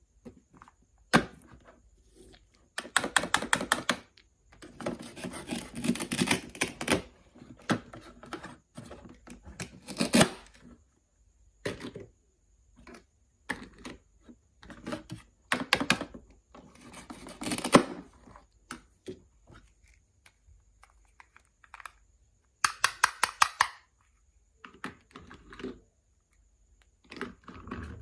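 Small hard utensils clicking and tapping on miniature toy cookware, in bursts of rapid, even clicks between single knocks and short pauses.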